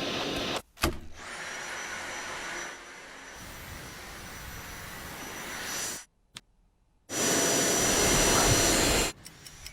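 Cordless stick vacuum cleaner running with a thin high whine over its airflow noise. The sound cuts out abruptly twice, once just under a second in and for about a second around six seconds in, and it is loudest in the stretch from about seven to nine seconds in.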